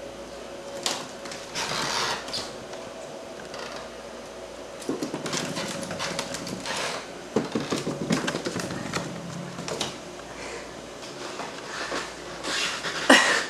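Boston terrier puppy playing: irregular scuffling, rustling and knocking, busiest in the middle, with a loud sharp knock near the end.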